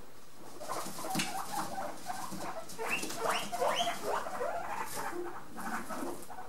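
Guinea pigs squeaking: a run of short, quick calls with several rising squeals (wheeks) about halfway through, the excited calling of guinea pigs expecting fresh vegetables.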